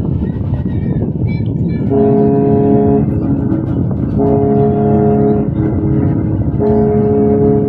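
Cruise ship's horn sounding three blasts of about a second each, each a steady chord of several tones, over a steady low rumble.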